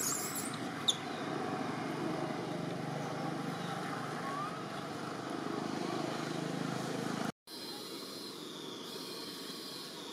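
Steady outdoor background noise, a low rumble, broken by a brief dropout about seven seconds in, after which it returns quieter with a faint high whine.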